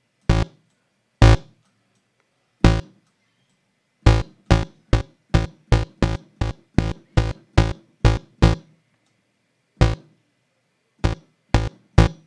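Short, punchy synthesizer house bass notes: two square-wave oscillators a fifth apart over a sub-oscillator an octave below, with zero attack and a short decay, so each note plucks and dies quickly. A few spaced stabs, then a quick run of about ten notes in the middle, then a few more stabs near the end.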